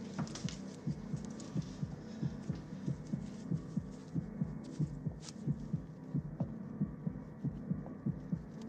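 Film heartbeat sound effect: a quick, steady heartbeat beating over a low hum, the film's sound for a smuggler's racing pulse as he waits to be searched.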